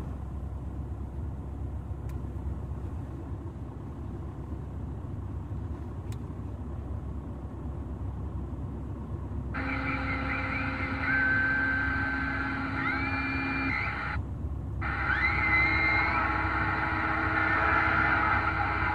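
CB radio receiver tuned to the 11 metre band in single sideband, giving a steady hiss of band static. About halfway, a carrier opens up with steady whistling tones and whistles that step and slide in pitch. It cuts out briefly and returns.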